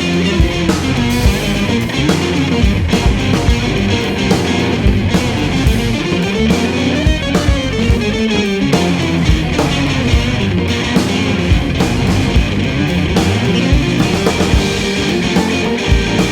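Instrumental band music with guitar to the fore, over bass and a steady drum beat.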